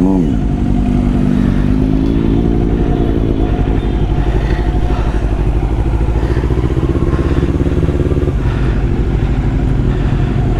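Kawasaki Z400 parallel-twin engine running as the bike is ridden, its pitch rising over the first couple of seconds as it accelerates, then holding steady while cruising.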